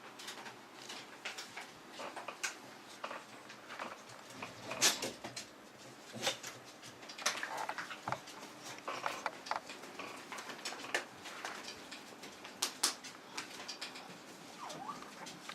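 A raccoon and a dog scuffling at play: irregular patter of claws and rustling, with a few short squeaky calls.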